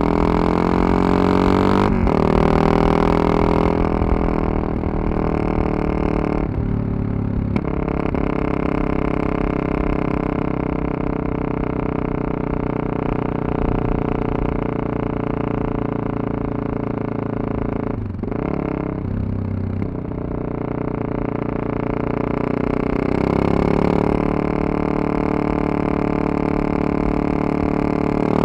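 Yamaha MT-03's 660 cc single-cylinder engine pulling through the gears under way. The engine note drops out briefly about a quarter of the way in and again about two-thirds through, and rises again near the end. Wind rumble runs underneath.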